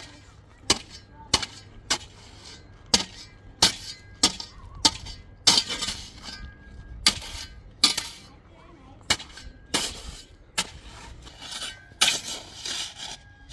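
A run of sharp knocks or clinks, about one or two a second at uneven spacing, some with a brief ringing tail, with faint voices in between.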